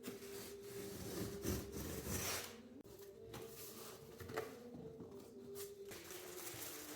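Irregular rubbing and scraping strokes, louder for a couple of seconds near the start, over a steady low hum.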